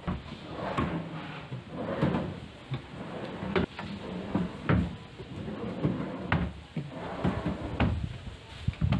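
Plywood dresser drawers sliding out and back in on metal drawer slides, and a cabinet door swinging, with several sharp knocks as they shut.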